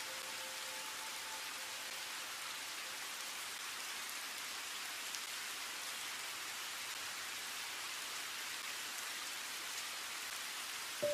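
Monsoon rain falling steadily on a garden, an even hiss.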